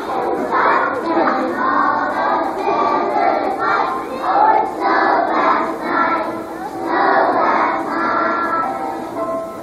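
A children's choir singing together, many young voices at once.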